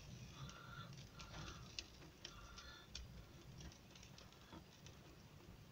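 Faint light pattering of raindrops, with scattered sharp ticks.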